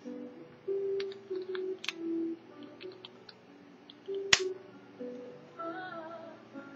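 A simple electronic melody of plain held notes from a toy communicator watch's sound chip, with sharp plastic clicks as the watch is handled and its lid snapped, one loud click about four seconds in.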